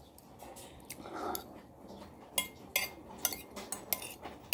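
Spoon and fork clinking and scraping against a plate while eating. A quick run of about seven light clinks comes in the second half.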